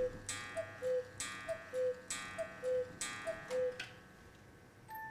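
Mechanical Black Forest cuckoo clock striking the hour: the cuckoo gives its falling two-note call about once a second, five times, each with a ringing strike. Near the end its music box starts playing a melody.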